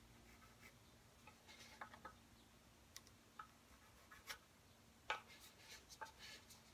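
Faint pencil strokes scratching on the bare wood of a didgeridoo, with small clicks and taps as a steel ruler is shifted along it; the sharpest click comes about five seconds in.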